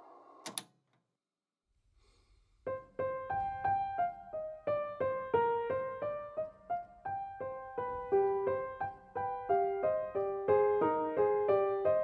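A short click about half a second in, then a brief silence, then background piano music starts: a gentle melody of single notes, one after another.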